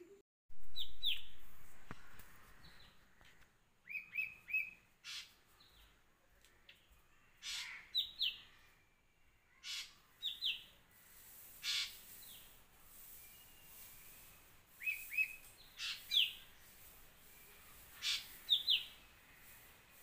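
Birds calling outdoors: short chirps in quick runs of two or three, repeated throughout, with harsher rasping calls between them. A sudden low rumble starts about half a second in and fades over a few seconds.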